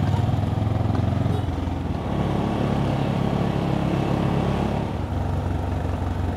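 Street traffic: a motor vehicle engine running with a steady low hum that shifts about a second and a half in.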